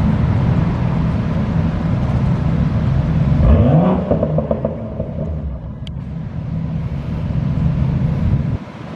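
BMW M2's turbocharged straight-six running, then revving up sharply about three and a half seconds in as the car accelerates away, the engine note rising and then fading as it moves off.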